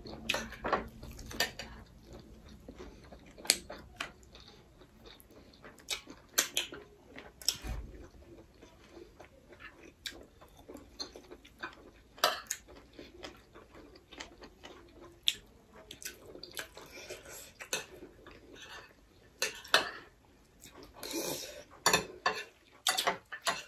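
Spoons clinking and scraping on plates in irregular short clicks while people eat, with chewing between the clicks. The clicks come more thickly near the end.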